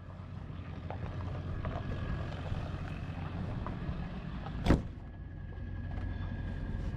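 Steady low rumble of a vehicle heard from inside its cab, with one sharp knock about four and a half seconds in.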